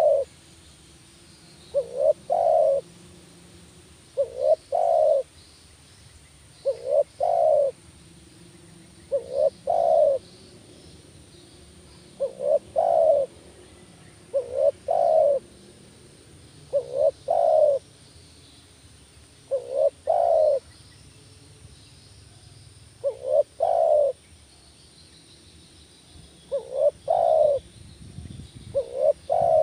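Spotted dove cooing in a steady repeated series of short phrases, about one every two and a half seconds. Each phrase is two or three quick coos, the last the strongest.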